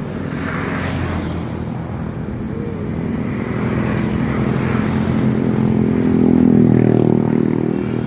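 A motor vehicle's engine passing on the road close by, growing steadily louder to a peak about six and a half seconds in.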